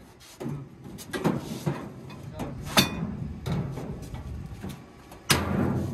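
Metal knocks and clangs on the welded steel-sheet lining of a truck's cargo bed as a metal pipe is worked against the side panel, with a sharp bang about three seconds in and another loud strike and clatter near the end.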